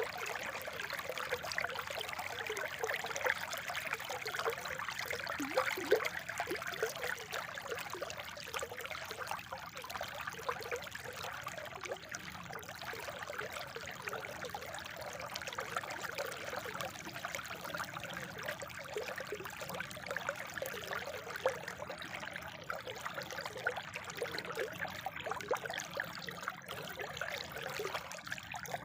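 Water from a spring trickling and running in a steady, unbroken flow.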